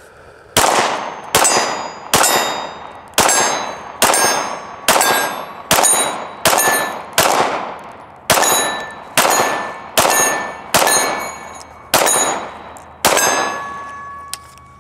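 A Springfield Echelon 9mm pistol fired about fifteen times at a steady pace, roughly one shot every 0.8 s. Each shot is followed by the ringing ding of steel targets being hit.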